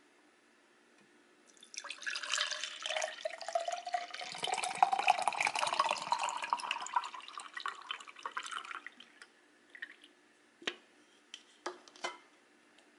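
Milk tea poured from an opened aluminium can into a tall glass, splashing and gurgling as the glass fills for about seven seconds, with a note that rises in pitch as the level comes up. A few faint clicks follow near the end.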